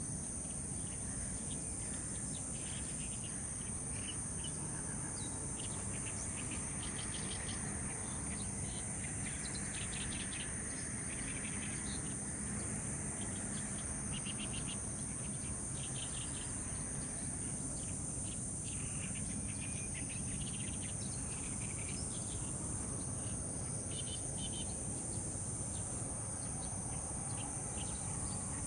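Insects trilling steadily at a high pitch, with short rapid chirping trains coming and going over it and a low steady rumble underneath.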